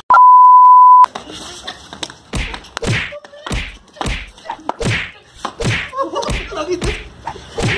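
A loud, steady 1 kHz test-card beep for about a second, then a run of about eight sharp whacks and thuds, blows landing on a man lying on the ground in a staged beating, with some shouting between them.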